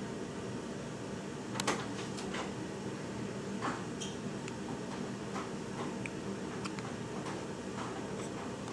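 Newborn baby hiccuping: a few short, sharp hics roughly two seconds apart, over a steady low hum of room noise.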